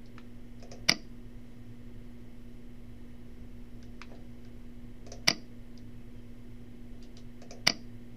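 Three sharp computer mouse clicks, each led by a few faint ticks, as dropdown items are opened and selected, over a steady low electrical hum.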